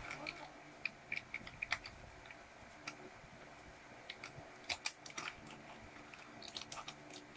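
Faint, scattered clicks and crinkles of a small toy-surprise packet being opened by hand and its little plastic pieces handled.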